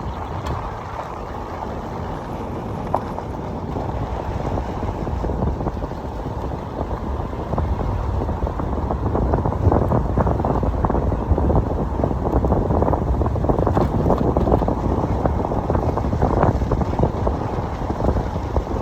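Wind buffeting the microphone: a continuous low rumble that grows louder and gustier about halfway through.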